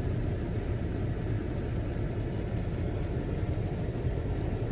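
A steady low rumble, like a running engine, with no distinct events.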